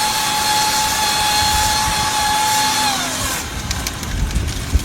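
A power tool's motor running at a steady high speed with a whining tone, then winding down in pitch about three seconds in as it is switched off.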